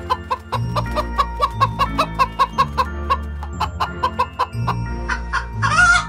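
Domestic hens clucking in a quick run of short clucks, about four a second, with one louder, longer squawk near the end, over background music.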